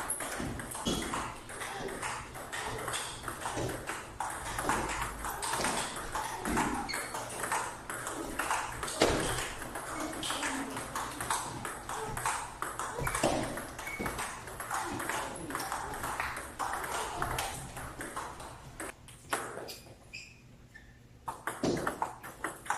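Table tennis balls clicking rapidly off rubber paddles and the table top in continuous practice rallies. Near the end the clicking briefly thins to a lull, then picks up again.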